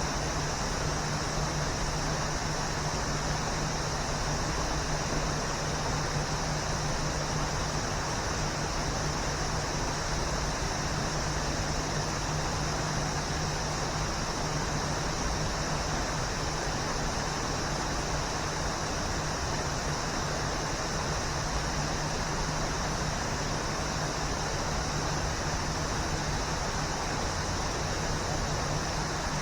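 Waterfall: steady rushing water, an even hiss with no break or change.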